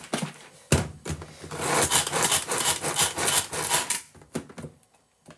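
Tupperware SuperSonic Chopper in use: a knock as the plastic container is set down under a second in, then the pull cord is pulled again and again, its blades whirring and rattling as they chop zucchini finer, fading out near the end.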